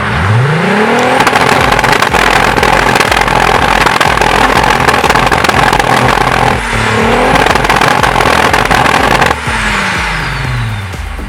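Turbocharged VR6 engine of a Volkswagen Golf Mk3 under hard acceleration: the engine note climbs steeply, dips at a gear change about six and a half seconds in and climbs again, then falls away as the throttle is lifted about two seconds before the end.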